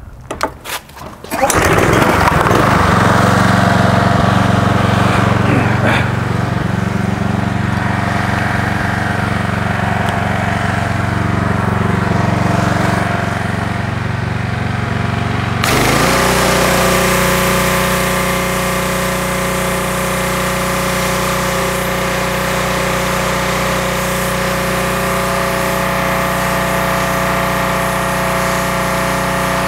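Engine-driven pressure washer running steadily, coming in suddenly about a second and a half in. About halfway through, its pitch shifts and the hiss of the high-pressure water jet joins it as the spray blasts grime off a transmission case.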